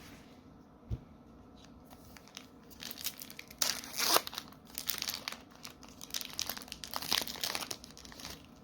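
A foil booster pack wrapper being torn open and crinkled, a dense crackle that is loudest near the middle.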